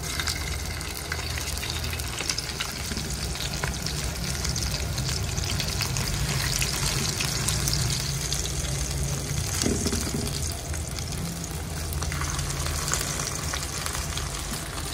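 Dried salted croaker frying in hot oil in a shallow aluminium pan: a steady sizzling crackle of many fine pops, with a steady low hum underneath.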